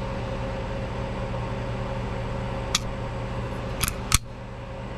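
Sig Spectre Comp pistol with an Apex flat trigger being dry-fired and reset by hand: three short sharp clicks, one alone and then a quick pair, the last the loudest.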